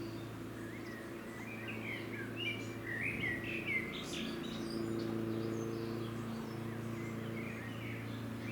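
Small birds chirping and twittering in quick clusters of short rising and falling notes, busiest between about one and a half and four seconds in and again near the end, over a steady low mechanical hum.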